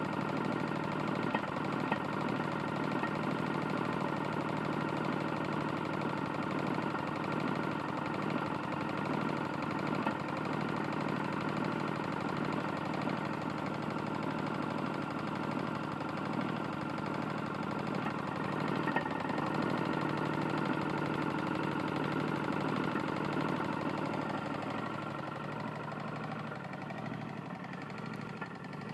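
Tecumseh lawn mower engine running steadily with a knock from a badly worn connecting rod, dropping back a little near the end.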